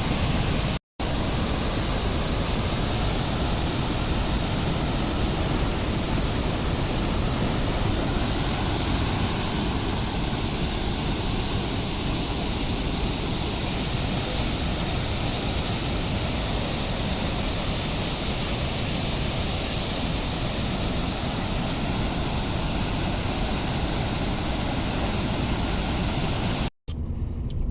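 Athabasca Falls: a heavy, steady rush of falling water, broken by a brief silent gap about a second in. Near the end it cuts off to a much quieter scene.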